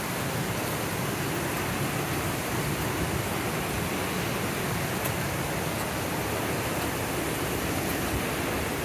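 Steady rushing of a mountain brook and waterfall, an even hiss that holds level without breaks.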